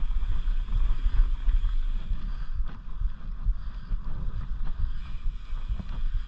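Mountain bike rolling fast over a dirt trail, heard through an action camera: a constant gusty low rumble of wind buffeting the microphone and tyres on dirt, with a few brief knocks from bumps.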